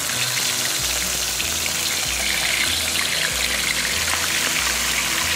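Peanut oil at about 350 degrees sizzling with many small crackles as a whole cornstarch-dusted black sea bass is lowered head first into it in a wok. A low bass line of background music runs underneath.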